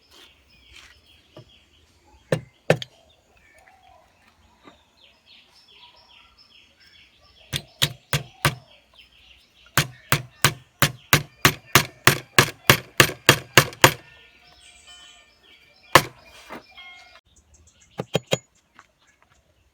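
Hammer striking nails into wood: scattered blows, then a fast run of about four blows a second for several seconds, a single hard blow and a last quick few. Birds chirp faintly in the background.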